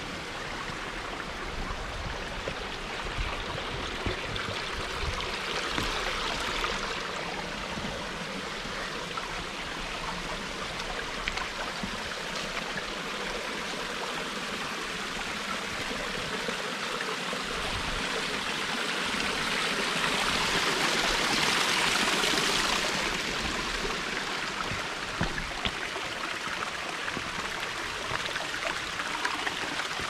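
Small rocky creek trickling and splashing over and between stones, a steady rush of water that grows louder for a few seconds about twenty seconds in.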